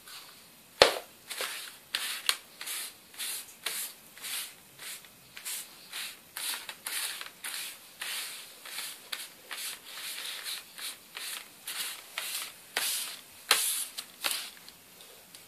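Paper rustling in a series of short strokes, about two a second, with a sharp click about a second in.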